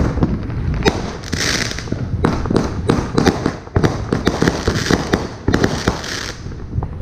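A 350-gram, 30-shot firework cake firing: rapid sharp bangs of shots launching and bursting overhead, several a second, with stretches of hissing crackle. The shots stop shortly before the end.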